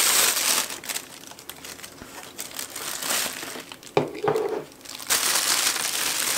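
Clear plastic bag and bubble wrap crinkling as a Nikon FTZ mount adapter is unwrapped by hand, with a sharp knock about four seconds in as the adapter is set down on a wooden table, then loud crinkling again.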